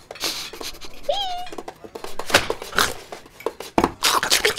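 Cartoon dog gnawing and chewing sound effects: scratchy crunches and clicks, with louder bursts in the second half. A short squeaky note rises and levels off about a second in.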